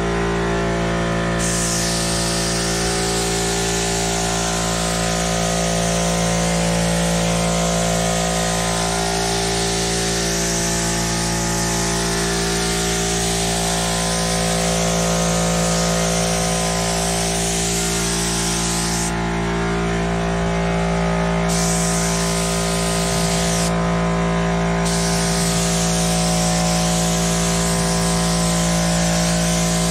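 ATD 6900 gravity-feed spray gun hissing as it sprays primer onto a car roof, starting about a second in and pausing twice briefly in the second half as the trigger is released. A steady motor hum runs underneath throughout.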